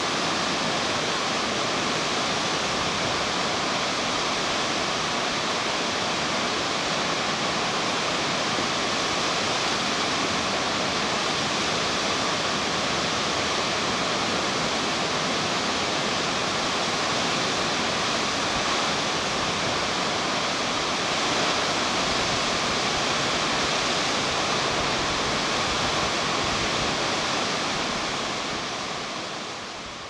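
Kepler Cascades, a stepped waterfall on the Firehole River, rushing steadily: a dense, even hiss of white water that fades out near the end.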